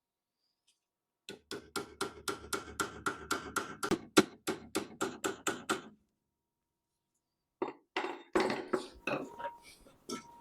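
Hammer tapping on a metal part: a quick, even run of taps, about five a second for some four and a half seconds. After a short pause comes a second, less even run of knocks and clatter.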